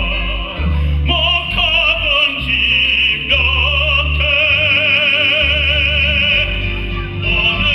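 A singer performing in operatic style, holding long notes with a strong, even vibrato over a sustained instrumental accompaniment.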